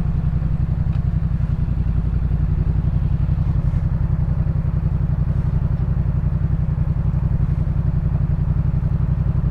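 2018 Yamaha MT-07's parallel-twin engine running steadily through a Jeskap K4 full aftermarket exhaust, its low, evenly pulsing exhaust note holding a level pitch with no revving.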